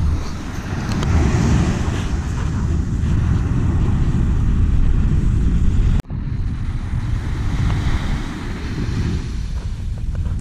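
Wind buffeting the microphone as a loud low rumble, with surf breaking on a sandy beach behind it. The sound cuts off abruptly about six seconds in and resumes with the same wind and surf.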